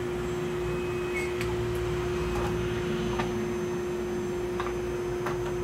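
Dental lab drill running with a steady hum as its bur bores a guide hole through an acrylic duplicate denture for a surgical stent.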